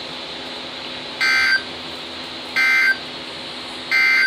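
Emergency Alert System SAME digital data tones: three short warbling bursts about a second apart. Their length fits the end-of-message code that closes an alert, which is sent three times.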